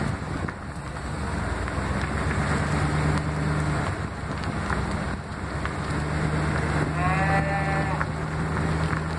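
Truck engine hum and tyre noise as the truck drives slowly along a road, with one short bawl from the cattle about seven seconds in.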